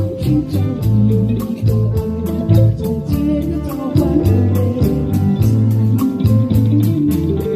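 Band music, likely an instrumental passage between sung lines: guitar and bass guitar over a steady drum beat.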